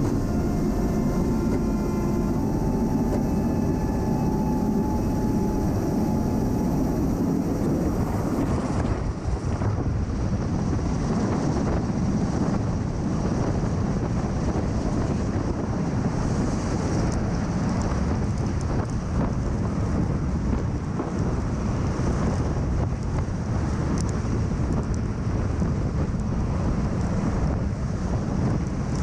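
MV-22B Osprey tiltrotor running, a loud steady rotor and engine noise with wind buffeting the microphone. A few steady whining tones in the first eight seconds or so fade away, leaving even rumbling noise.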